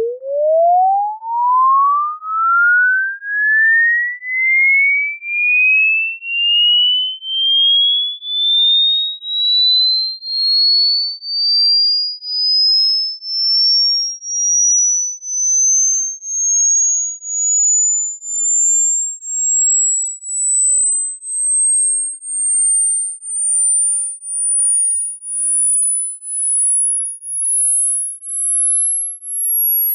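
Hearing-test tone: a single pure sine tone sweeping steadily upward in pitch, from below 1 kHz to above 10 kHz, its loudness pulsing about once a second. As the tone climbs into the highest range it marks the upper limit of what older ears can hear.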